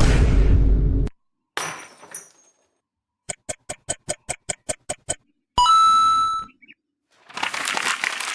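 A run of separate stock sound effects with short silences between them: a heavy boom-like impact, a short crash, a quick series of about ten clicks, a single ringing ding, and a noisy swell near the end.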